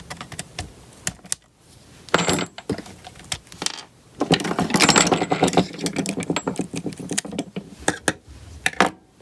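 Small metal parts and hand tools clicking and clattering as an RC truck's rear hub assembly is taken apart, with scattered clicks and a busier run of clatter about halfway through.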